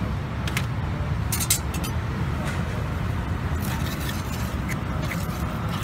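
Metal spatula scraping and clinking on a flat iron griddle as egg, cheese and water are stirred together, in short sharp strokes over a steady low rumble.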